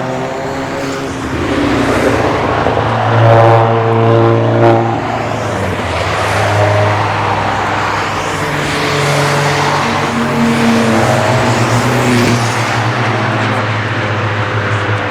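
Cars driving past at speed on a race track, engines revving up and down through the gears. The loudest pass comes about three to five seconds in, with a couple of sharp peaks, and another car is heard revving later on.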